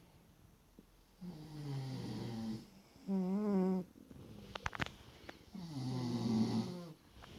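Snoring in slow, regular breaths: a longer snore, a shorter wavering one soon after, and another near the end, with a few faint clicks between them.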